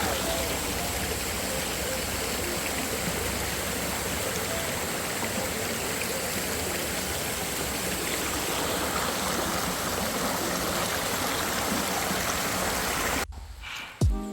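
Steady rushing of water, with no distinct drops or rhythm; it cuts off abruptly about a second before the end, followed by a low thump.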